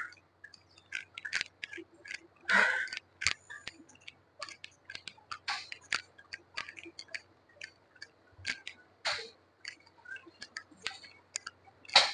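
Irregular light clicks and taps, a few a second and unevenly spaced, with a brief rustle about two and a half seconds in.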